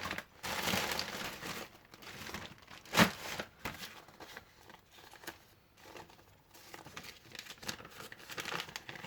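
Packaging crinkling and rustling as parts are rummaged out of a box, with one sharp knock about three seconds in.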